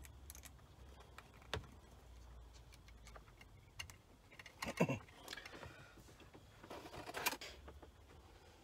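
Faint handling noises: a few light clicks and taps, with louder rustling about five and seven seconds in, as the spotlight wiring connectors are handled and plugged in. A low steady hum underlies it.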